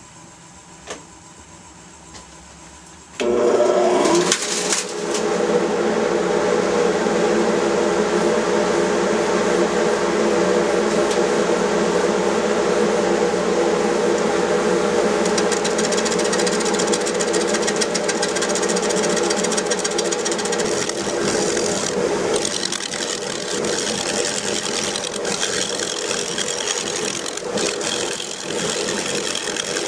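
Wood lathe spinning an out-of-round spalted oak bowl blank, humming quietly at first; about three seconds in a turning tool bites into the wood and a loud, steady rough cutting noise starts as the blank is trued round. Parts of the blank are soft and punky with rot.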